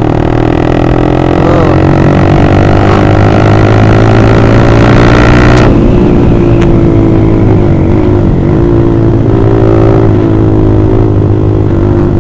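Honda CBR150R's single-cylinder engine through an Austin Racing aftermarket exhaust, pulling under load: its pitch climbs steadily for about five and a half seconds, then cuts back abruptly and runs on at a fairly steady pitch.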